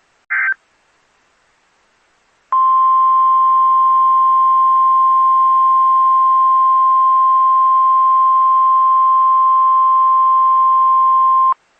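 A brief beep, then a steady single-pitch alert tone lasting about nine seconds that starts and stops abruptly: NOAA Weather Radio's 1050 Hz warning alarm tone, which signals a new weather alert.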